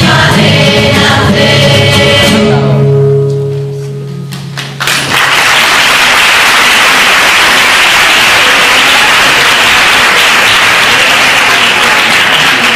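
A choir sings the last line of a song and ends on a long held note that fades out. About five seconds in, the audience breaks into steady applause that keeps going.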